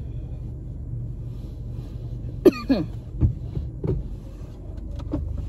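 Car engine idling, a steady low hum heard from inside the cabin, with a few sharp clicks of handling in the car and a short falling sound about two and a half seconds in.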